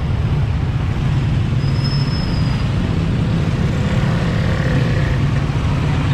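Steady low rumble of wind and road noise while riding a bicycle along a road, with a faint short high whistle about two seconds in.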